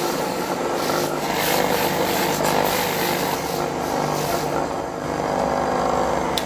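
Electric buffing motor running with a rubber inner-tube patch pressed against its spinning abrasive wheel: a rough scraping over the motor's steady hum, roughing the patch for gluing. The scraping eases off after about four and a half seconds, and there is a sharp click near the end.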